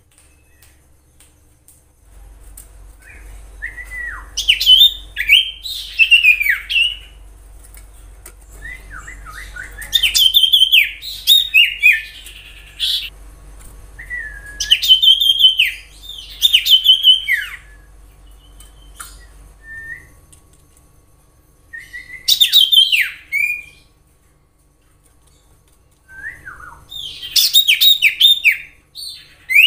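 Common iora singing: five bursts of quick whistled and chattering notes with short pauses between them. A faint low hum lies underneath for much of the time.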